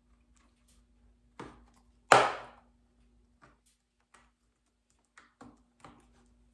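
Plastic shell of a third-generation Dodge Ram sun visor being pried apart with snap ring pliers, its molded nubs snapping out of their receiving holes: a smaller crack about a second and a half in, a loud sharp snap just after two seconds, then a few light clicks near the end.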